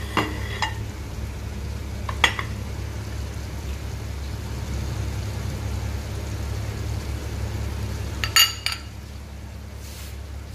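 Glassware clinking a few times as a glass plate and bowl are knocked together: a cluster of short ringing clinks at the start, one about two seconds in, and a double clink about eight seconds in, over a steady low hum.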